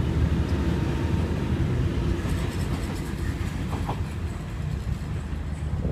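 A Sydney Trains Waratah double-deck electric train (set A13) pulls out of the platform and runs past, a steady low rumble from the train and its wheels on the rails that slowly eases as it draws away, with faint ticking from about two seconds in.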